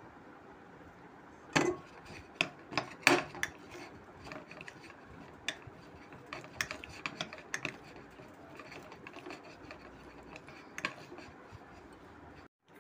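Spoon stirring roasted peanuts through melted chocolate in a glass bowl: irregular clinks and scrapes against the glass, the loudest about one and a half and three seconds in.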